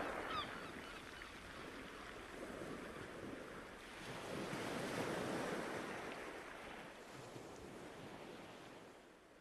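Sea surf and wind as a steady rushing noise, with one wave swelling up and falling away about halfway through. The whole sound fades out near the end.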